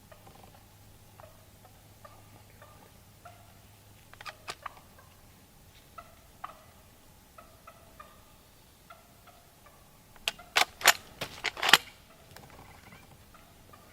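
Wild turkeys giving short, repeated clucks and putts, with a few light clicks about four seconds in. Near the end comes a quick run of loud, sharp clacks.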